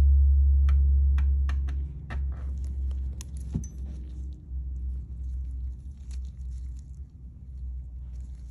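Sharp metallic clicks and taps of a hook pick working against a small brass hydraulic fitting as its O-ring is pried off, over a low rumble that fades about two seconds in.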